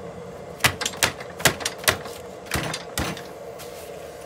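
A run of about seven sharp, uneven taps in the first three seconds: the front wheel of a Kaabo Wolf King electric scooter being tapped out of the fork, its axle nuts already off.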